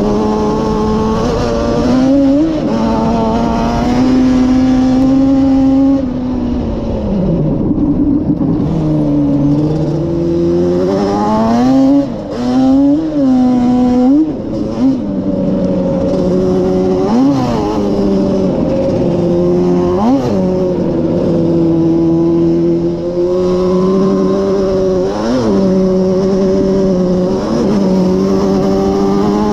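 Yamaha Banshee ATV's two-stroke twin engine running under way on a dirt trail, its pitch rising and falling with the throttle. The engine slows down a few seconds in, then gives several quick revs before settling into a steady run.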